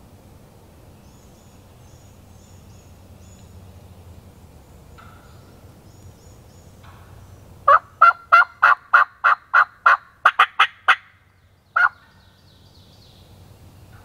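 Wild turkey alarm-putting: a quick series of about a dozen sharp putts over some three seconds, then one more putt. It is the sign the bird has spotted the hunter.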